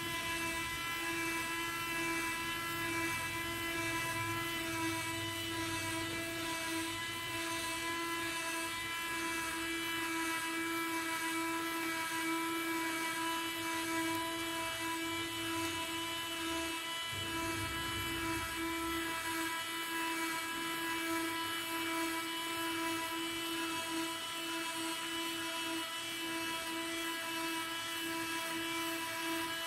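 Small electric gear motor whining steadily as it drives a cardboard telescopic boom out and then back in, with a brief stop about halfway through where it reverses.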